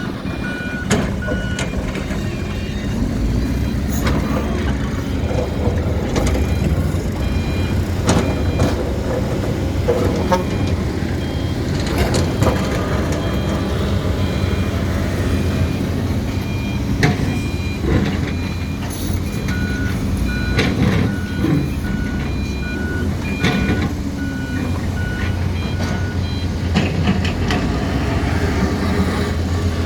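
Excavator diesel engine running steadily under load, with irregular knocks and clanks as concrete is broken and moved. An alarm beeps in a steady repeated pattern briefly at the start and again for several seconds about two-thirds of the way through.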